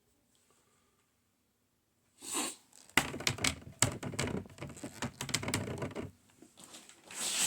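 Hard plastic CGC comic slabs being handled: a brushing rustle, then a quick run of clacks and knocks as the cases are set down and picked up, thinning out before another rustle near the end.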